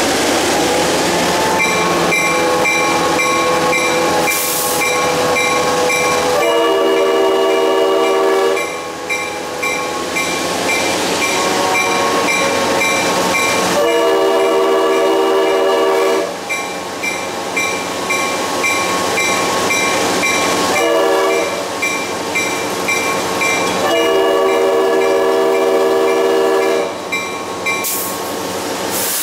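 Locomotive horn sounding the grade-crossing signal: two long blasts, one short and a final long one. The locomotive bell rings steadily through it, over the rumble and clatter of the moving train.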